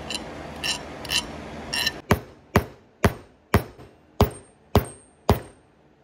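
Hammer blows on a steel letter/number punch, stamping marks into a small poured silver ingot on a workbench. A few light metallic clinks come first, then seven sharp strikes about half a second apart, some leaving a brief high ring.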